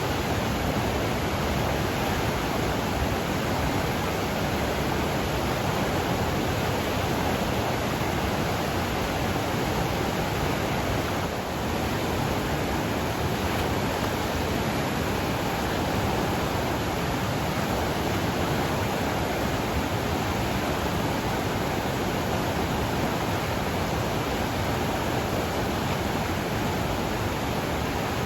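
Flooded mountain river swollen with runoff, rushing steadily: a dense, unbroken roar of water.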